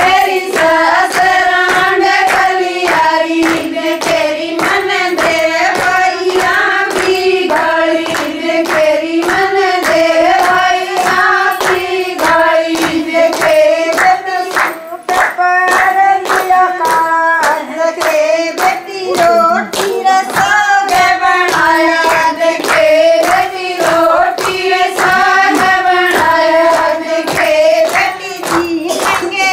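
Women singing a Haryanvi folk song to steady, evenly spaced hand clapping that keeps the beat for the dance.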